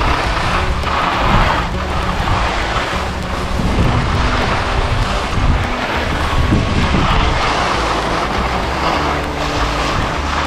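Wind rushing over an action camera's microphone during a ski run: a loud, steady rumble with surges of hiss.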